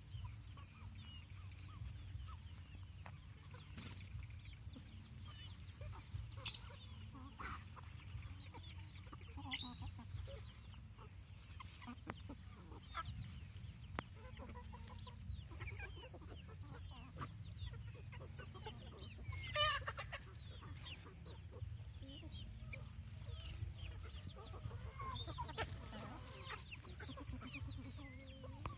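A flock of chickens clucking in short scattered calls while foraging, with one louder call about two-thirds of the way through, over a steady low rumble.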